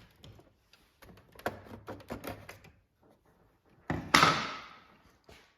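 Plastic top cover of a large-scale model diesel locomotive being worked loose, with a run of small clicks and knocks, then a loud clack about four seconds in followed by a scraping rustle that fades over about a second as it comes free.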